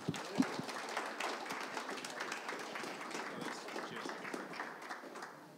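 Small audience applauding, the clapping thinning and dying away near the end.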